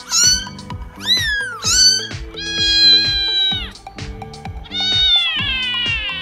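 Kittens meowing in high, thin calls: three short meows, then two long drawn-out ones, the last sliding down in pitch. Background music with a steady beat plays underneath.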